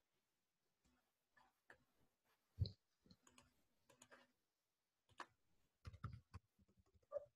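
Faint, scattered clicks and knocks, the loudest about two and a half seconds in and several close together around six seconds in.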